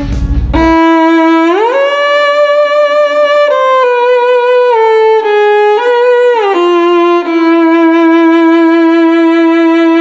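Music: a solo violin-like bowed string melody. It slides up from a low note, steps slowly down through several notes, then settles on a long low note held with a slight waver.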